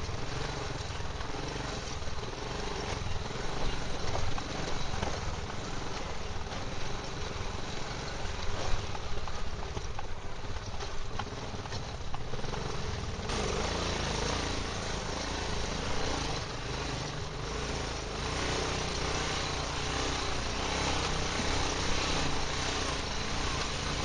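Quad ATV engine running under way over a rough, rocky trail, the sound wavering with the ground and a few brief louder knocks along the way.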